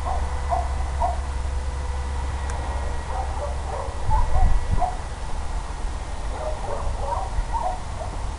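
Wind rumble on the microphone, with a scattered run of short animal calls.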